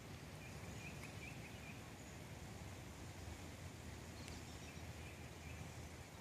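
Quiet outdoor ambience: a faint steady low rumble with a short run of faint bird chirps about half a second to two seconds in.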